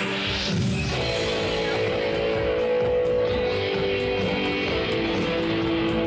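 Psychedelic trance band playing live, with long held electric guitar notes over a steady ticking beat, just after a rising sweep peaks at the start.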